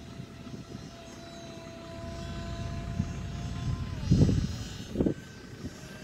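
Electric motor and propeller of a UMX Timber RC plane in flight, a steady thin whine that drops in pitch about four seconds in and then picks up on a higher note. Wind gusts buffet the microphone twice near the end.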